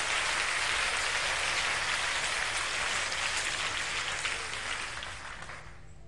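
Audience applauding, the applause dying away over the last second or so.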